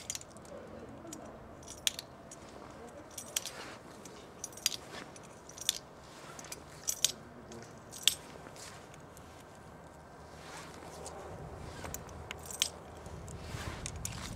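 Sharp metallic clicks, about a dozen at uneven intervals of a second or so: .44-40 cartridges being loaded one at a time into the front of an 1860 Henry rifle's under-barrel magazine tube. A low rumble builds near the end.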